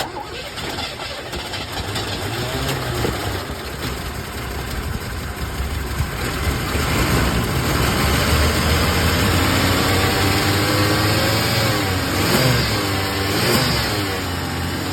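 Carbureted engine of a 1986 station wagon, started for the first time in about 20 years with gas poured down the carb bowl: it cranks, catches and runs roughly, getting louder over the first several seconds, and is revved a few times near the end.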